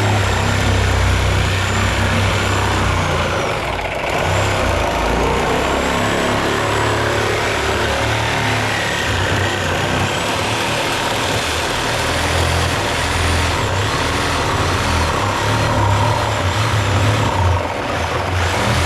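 Motor vehicle running, with a steady low engine hum under continuous road-type noise.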